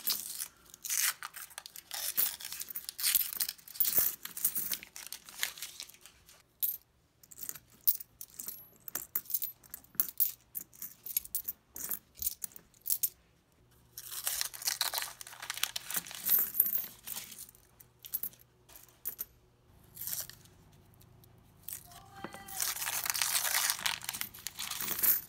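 Nickels clinking and clicking against each other as they are slid around and sorted on a mat, with bursts of denser jingling. Near the end, the paper wrapper of the coin roll is crinkled and torn.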